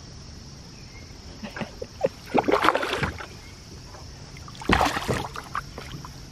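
Water splashing and sloshing against the side of a canoe as a hooked fish struggles at the surface next to the hull, in two short bursts about two and a half and five seconds in, with a few light clicks before them.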